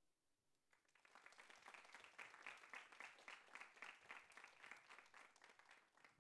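Audience applauding: a dense patter of many hands clapping that starts about a second in and thins out near the end.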